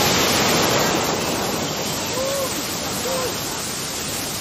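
Rushing, foaming water of tsunami surge waves washing up over a beach, a steady noise that eases off gradually. Two brief rising-and-falling calls sound faintly about two and three seconds in.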